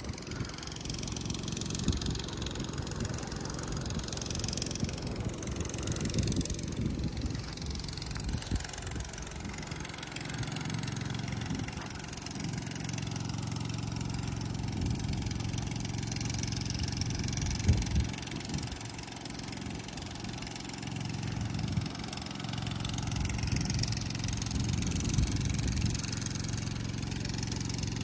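Diesel engine of a hydraulic excavator running steadily at idle, with one sharp knock a little past halfway.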